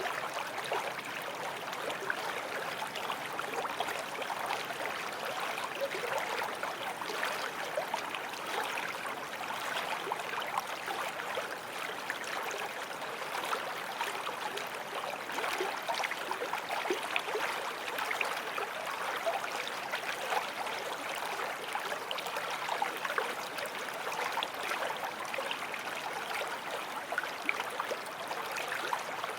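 Forest stream flowing steadily over stones, a constant rushing babble of water.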